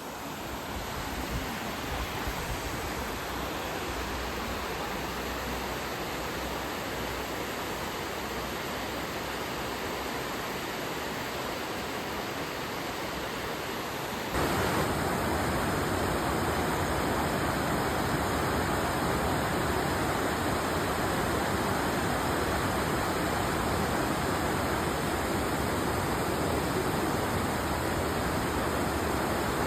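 Waterfall water rushing, a steady noise with no distinct events; about halfway through it jumps abruptly louder and stays there.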